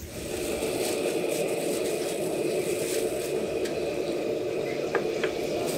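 Gas stove burner running steadily under a stainless steel wok in which soy-sauce braising liquid bubbles, with a few light clinks of the ladle against the wok in the second half.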